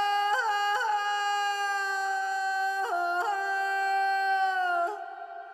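Background music: a single sustained melodic line, a voice or a wind-like tone, holds long notes with quick ornamental flicks at the start and a step down partway through. It breaks off about five seconds in and leaves an echoing fade.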